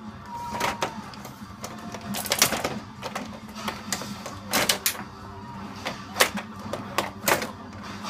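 Small combat robots fighting, with irregular mechanical clattering and sharp knocks over a steady motor hum, several hits clearly louder than the rest.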